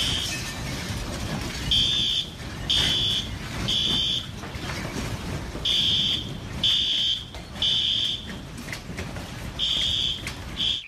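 Building fire alarm sounding in the temporal-three evacuation pattern: three high beeps of about half a second each, then a pause, repeating about every four seconds, over a constant low rumble of noise.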